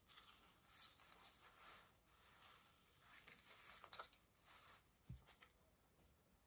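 Faint, irregular rustling of a synthetic wig's fibres and its cap as the wig is handled and pulled onto the head, with a soft bump about five seconds in.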